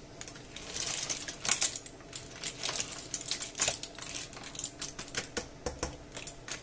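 Cooked, opened clam shells clicking and clattering against each other and the non-stick frying pan as they are stirred with a plastic spatula: many light, irregular clicks.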